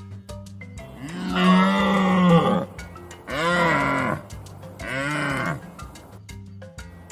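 Deer calling: three long, low calls, each rising and falling in pitch, the first the longest and loudest.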